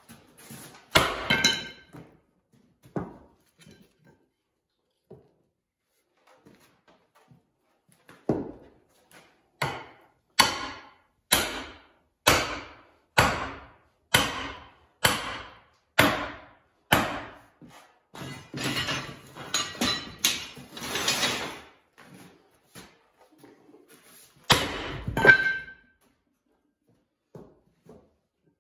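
Sledgehammer blows on a welded spring-steel axe wedged in a wooden stump, in a strength test of the axe. There are two heavy strikes near the start, then a run of about nine blows roughly one a second, a quicker cluster of knocks, and near the end a last hard blow that rings briefly like metal.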